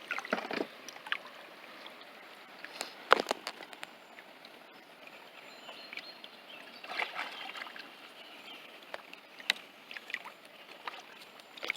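Scattered knocks and clicks from a kayak as gear and fish are handled aboard, over faint water lapping and sloshing against the hull; a sharp knock about three seconds in is the loudest.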